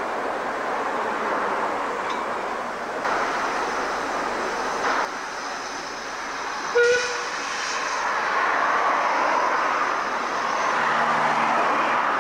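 Narrow-gauge passenger coaches rolling past, then, after a cut, a Decauville 0-6-0T steam tank locomotive running in with a hiss of steam. A single short whistle toot sounds about seven seconds in.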